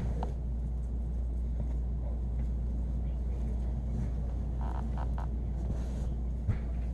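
A steady low hum runs throughout, with a few faint short sounds about five seconds in and a single soft thump near the end.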